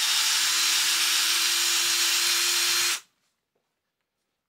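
Ryobi cordless drill running steadily at one speed, reaming out a hole that was drilled at a slight angle through a turnbuckle, then stopping abruptly about three seconds in.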